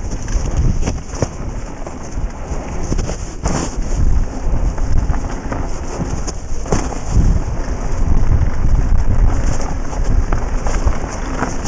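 Wind rumbling on a helmet camera's microphone during a mountain-bike ride down a dirt and gravel trail. Tyres crunch over the surface throughout, and the bike rattles and knocks over bumps.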